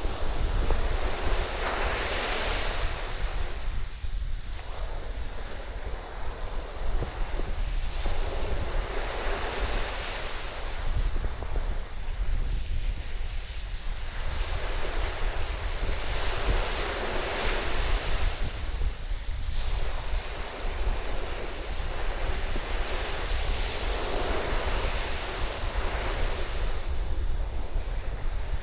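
Surf on a sandy beach: waves break and wash up the sand in surges about every seven to eight seconds, under a steady low rumble of wind buffeting the microphone.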